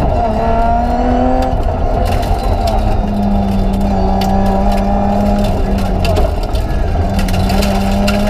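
BMW 325 Group A rally car's straight-six engine running hard, heard from inside the cabin, holding steady revs with brief drops in pitch about a second and a half in and again around six seconds in as the driver lifts or shifts. Scattered sharp ticks and clicks sound over the engine.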